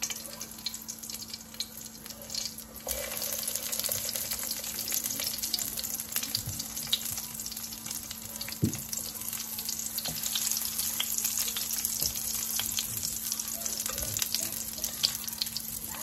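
Masala-coated aubergine halves sizzling as they are fried in hot oil in a frying pan, more being laid in one at a time. The sizzle steps up about three seconds in, with a few light clicks as the pieces are set down.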